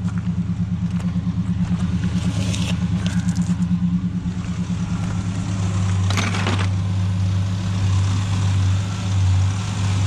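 Ford Ranger engine idling steadily, its low hum pulsing for the first few seconds. A brief scraping noise comes about six seconds in. The engine is running after the fuel tank was struck with a hammer to jar a suspect fuel pump.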